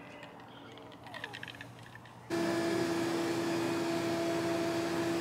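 Electric juicer switched on about two seconds in, its motor starting abruptly and then running at a steady hum. Before it starts, a few light clicks and knocks of parts being handled.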